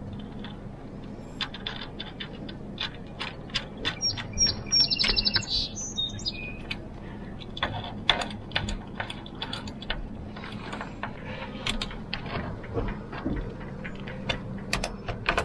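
Irregular small clicks and taps of hands working a VHF antenna's cable connector and small mounting hardware at an aluminium masthead. A bird chirps a quick run of high notes about five seconds in.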